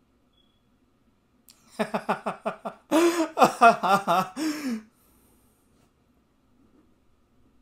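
A man laughing: a quick run of breathy chuckles about two seconds in, breaking into louder voiced laughter that stops a little past the middle.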